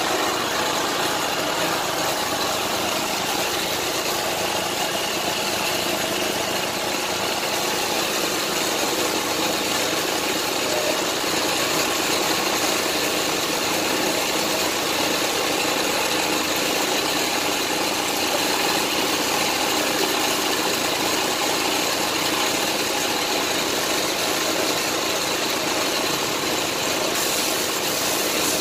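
Steady hiss of compressed air through a gravity-feed spray gun spraying paint, over the steady running of the air compressor that feeds it.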